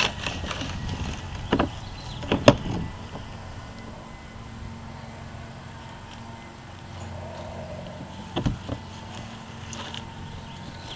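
A few sharp knocks and bumps on a plastic playhouse: one, then a quick pair in the first three seconds, and another late on, over a steady low background rumble.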